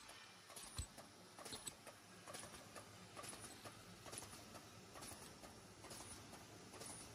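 Faint, regular light clicks a little under once a second over a low steady hum: a CPE zipper bag making machine running.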